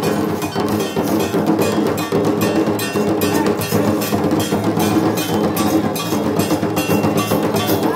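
Traditional Santali drums beaten with sticks, together with small brass hand cymbals, playing a fast, steady dance rhythm.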